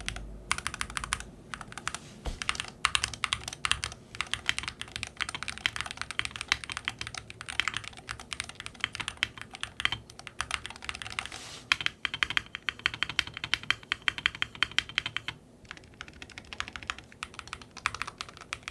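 Typing on an Akko MOD68 HE keyboard, a gasket-mounted aluminium-case board with linear Akko Astro Aim Hall-effect switches and transparent plastic keycaps: a fast, steady run of keystrokes with a short pause about three-quarters of the way through.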